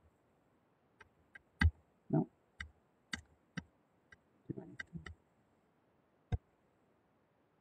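Taps and clicks of a stylus and fingers on a laptop's touchscreen: about ten sharp, separate clicks at uneven intervals, with two duller knocks among them.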